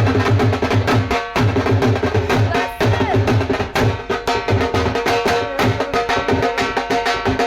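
Dhol drumming in a fast, even rhythm, with deep bass-head strokes under sharp treble-head hits, over music carrying a steady melody.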